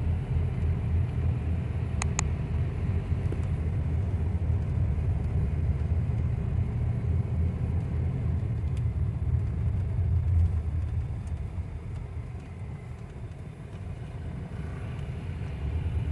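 Car driving slowly, heard from inside: a steady low engine and road rumble that drops off for a few seconds about three-quarters through. Two short clicks about two seconds in.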